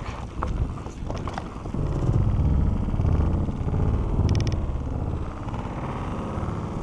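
Santa Cruz Bronson mountain bike descending a dirt singletrack at speed: the knobby tyres rumble over the trail with wind buffeting the microphone, getting louder about two seconds in. A brief fine clicking comes about four seconds in.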